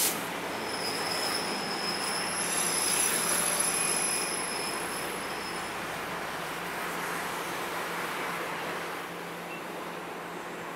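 A train running past, its steel wheels squealing on the rails with high steady screeches that fade out about six seconds in, over the continuous rumble of the train. A sharp click at the very start.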